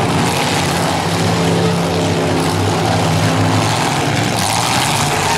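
Engines of several demolition derby cars running loudly together in the arena.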